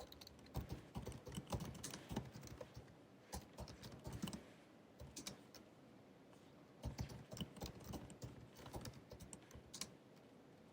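Typing on the built-in scissor-switch keyboard of a 2019 16-inch MacBook Pro: quick runs of soft key clicks, pausing for a second or two about midway before picking up again.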